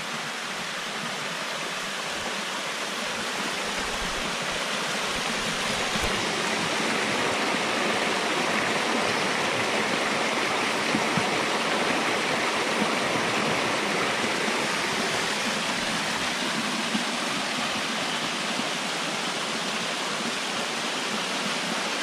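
Small forest waterfall spilling down stepped rock ledges into a shallow pool: a steady rush and splash of water that grows louder over the first several seconds, then holds.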